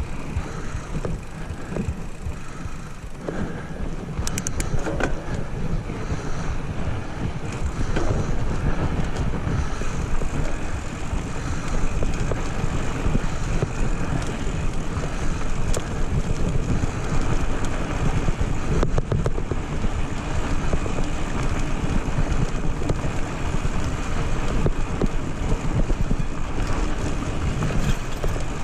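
Wind buffeting the camera microphone over the rumble of mountain bike tyres rolling fast on loose gravel. It builds over the first several seconds as the bike picks up speed, then holds steady, with a few sharp clicks along the way.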